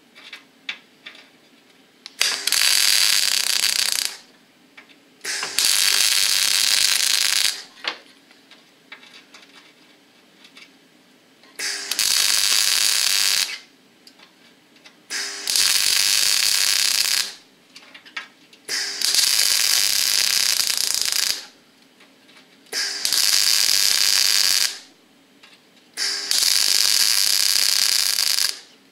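MIG welder laying short weld runs on a steel outrigger and chassis, the arc sparking in seven bursts of about one and a half to two and a half seconds each, with brief pauses between them.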